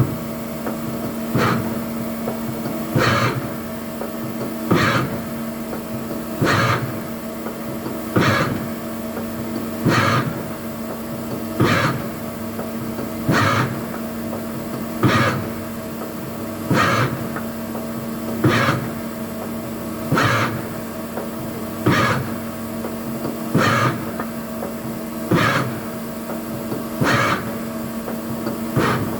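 CNC lathe tool turret indexing over and over, each index a short clunk and whir about every 1.7 seconds, over a steady machine hum.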